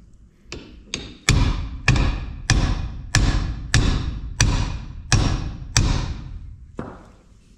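Hammer blows on a steel pin, driving the piston and rod assembly down through a hydraulic loader cylinder clamped in a vise. About eleven strikes, roughly one every 0.6 s, each followed by a short ring; the first two are lighter, and the last comes after a short pause.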